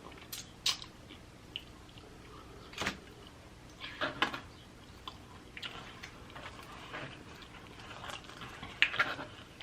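A person eating pizza close to the microphone: scattered wet mouth clicks and smacks of chewing, a few seconds apart.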